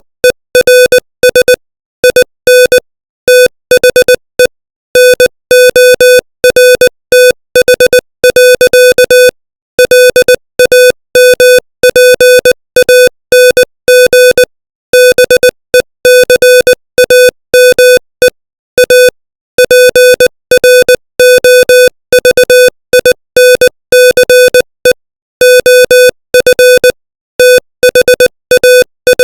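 Electronic Morse code tone sent at 20 words per minute: one steady, buzzy mid-pitched beep keyed on and off in short dits and longer dahs, with silent gaps between letters and longer gaps between words.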